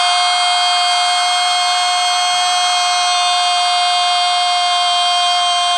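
A long, dead-steady held tone with many overtones over the roar of a stadium crowd celebrating a goal.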